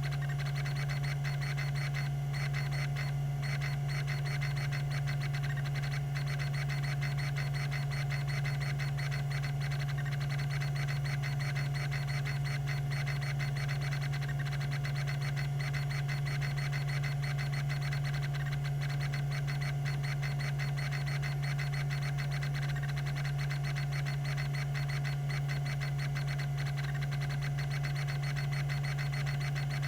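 Tandon TM362 hard drive running, its 3600 rpm spindle giving a steady hum with a higher whine above it. A rapid, even ticking from its rack-and-pinion stepper head actuator runs through it.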